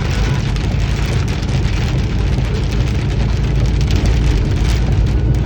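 Rain falling and spattering on a surface, a steady hiss full of fine drop ticks, over a constant low rumble.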